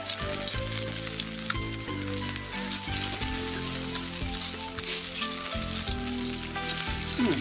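Oil sizzling steadily on a large iron griddle, with a soft melody of background music.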